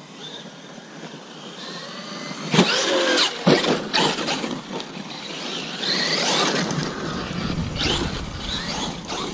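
Traxxas Maxx electric RC monster truck's brushless motor whining, rising and falling in pitch as it speeds up and slows. Several sharp knocks come about two and a half to four seconds in and again near the end.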